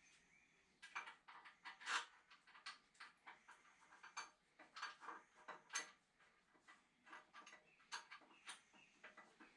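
Faint, irregular clicks and clinks of small metal parts and hand tools being handled, a few to each second, with the loudest clicks about two seconds in and near six seconds.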